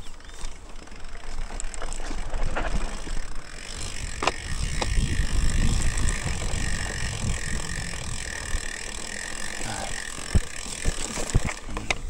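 Mountain bike ridden over rough dirt trail: tyres rumbling, with knocks and rattles over bumps. From about four to ten seconds in, the rear hub's freewheel ratchet buzzes steadily while the bike coasts.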